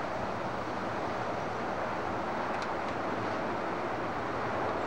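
Steady rushing roar of strong tornado winds on a camcorder's microphone.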